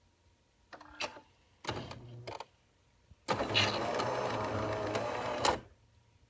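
Jura ENA Micro 1 automatic espresso machine brewing after pre-wetting the grounds: its pump starts in two short spurts about a second and two seconds in, then runs steadily for about two seconds and stops.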